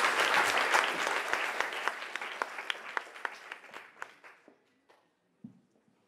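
Audience applauding, the clapping thinning to a few scattered claps and dying away about four and a half seconds in. A soft low thump near the end.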